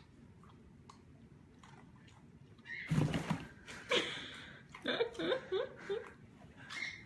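Faint scratching on a cardboard box, then a sudden rustle and scrape of cardboard about three seconds in as a kitten pushes up through a slit in the box's top. A person laughs in broken bursts over the next few seconds.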